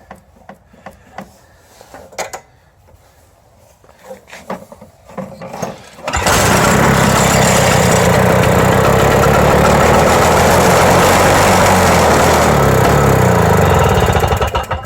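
A few faint clicks and knocks, then about six seconds in the Toro CCR 2450 snowblower's small two-stroke engine catches and runs loudly and steadily for about eight seconds before cutting off abruptly near the end. This is the season's first start, after starter fluid and compressed air were put through the stuck carburetor and the primer was pumped.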